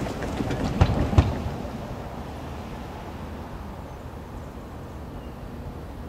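A quick run of sharp clanks and knocks in the first second and a half, the two loudest close together about a second in, over a steady low rumble.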